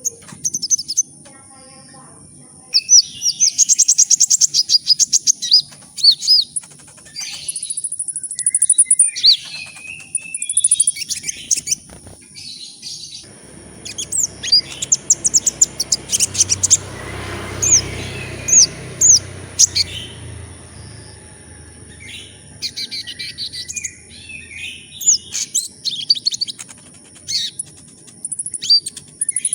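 Kolibri ninja, a small sunbird, singing in bursts of quick, high, thin chirps and fast twittering trills, over a steady high whine. A low rushing noise joins the song in the middle.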